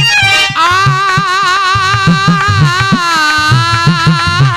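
Rasiya folk song: a man sings into a microphone, holding a long, wavering note with heavy vibrato from about half a second in. Behind him a reed keyboard plays chords and a hand drum keeps a steady beat.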